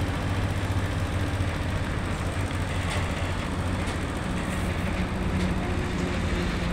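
Heavy haulage truck's diesel engine giving a low, steady drone as it pulls a multi-axle modular trailer with an oversized load at walking pace.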